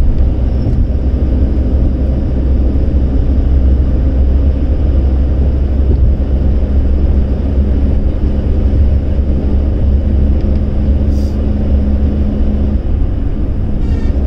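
Steady low rumble of a car driving at highway speed, heard from inside the cabin: engine and tyre-on-road noise, with a faint steady hum through the middle.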